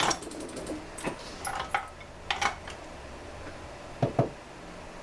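Scattered clicks, clinks and knocks of hand tools and chainsaw parts being handled during disassembly, with two duller thumps near the end.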